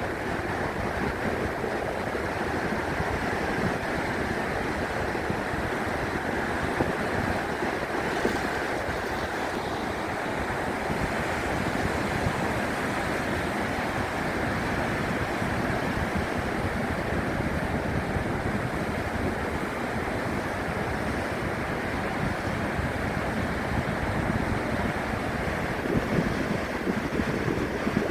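Rough sea surf: waves breaking and churning in a steady, continuous wash, with a few louder surges near the end.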